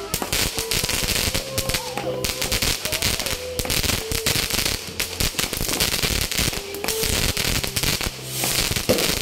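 Fireworks going off overhead in a dense, unbroken stream of rapid pops and crackles, many small bangs overlapping.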